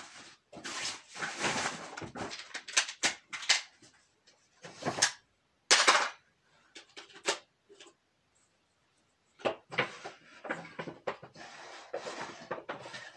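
Someone rummaging through fishing tackle: irregular rustling, rattles and sharp clicks of boxes and packets being handled. There are a few louder knocks around the middle and a brief lull about two-thirds of the way in.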